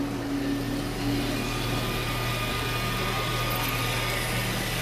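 HO-scale Märklin steam locomotive model running on three-rail AC track with a train of freight cars, its motor humming steadily along with the rolling noise of the wheels.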